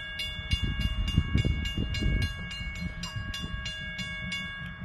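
Railroad grade-crossing bell ringing rapidly, about four to five strikes a second, warning of an approaching train; it stops right at the end. A low rumble swells underneath from about half a second to two seconds in.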